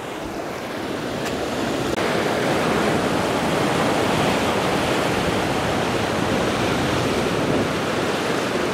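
Ocean surf breaking and washing against the rocks, a steady rushing that swells over the first couple of seconds.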